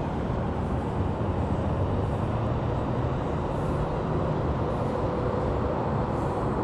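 Steady wind rumbling across the microphone of an action camera on an open-air drop-tower seat. It is a low, even rush with no breaks.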